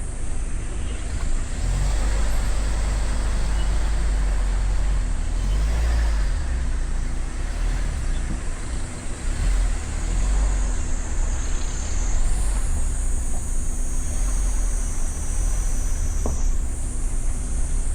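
Motorcycle running steadily on the move, its engine a constant hum under heavy wind buffeting on the microphone.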